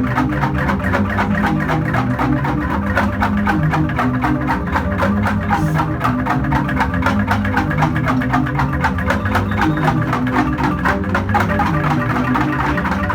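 Jegog bamboo gamelan ensemble playing: a fast, dense run of interlocking strikes on tuned bamboo tubes over deep, sustained bamboo bass notes.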